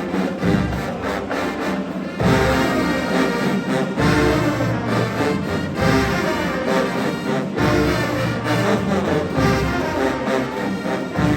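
A marching band's brass section plays sustained chords over low drum hits that fall about every two seconds.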